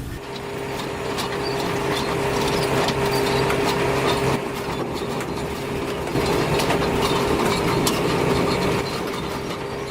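Heavy log-handling machinery running with a steady hum and a steady higher tone, with scattered clanks and knocks.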